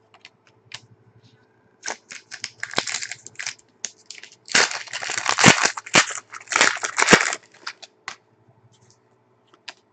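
A foil trading-card pack wrapper crinkling and tearing as it is opened, among light clicks of cards being handled. The crackling comes in bursts, loudest and densest for about three seconds past the middle.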